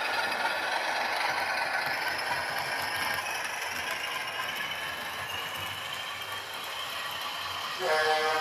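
Model Power PRR RF-16 diesel locomotive A and B units, each powered by a new 24-volt motor, running along the track: a steady rattle of gears and wheels with a faint motor whine. Near the end the DCC sound decoder gives a short horn blast.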